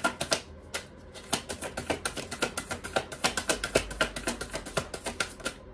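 A deck of tarot cards being overhand-shuffled in the hands: a quick run of crisp card clicks, several a second, with a short break about a second in.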